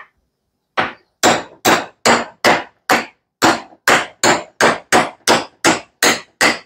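Hammer tapping a 30 mm socket to drive a new fork seal into the lower fork leg of a Honda CRF125F: about fifteen sharp strikes, roughly two to three a second, starting about a second in. The taps seat the seal fully home in its bore.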